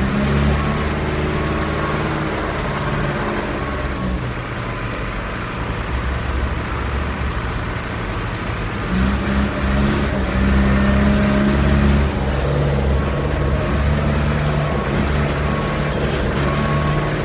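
Concrete mixer truck's diesel engine running steadily with a low hum. It eases off about four seconds in and picks up again a few seconds later, running stronger to the end.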